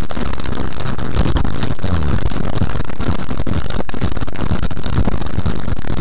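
Car driving through heavy rain: a loud, steady rush of road and rain noise with scattered crackles.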